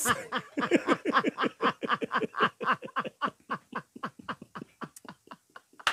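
A man laughing hard in a long run of quick, short bursts, each falling in pitch, about five or six a second, growing fainter toward the end.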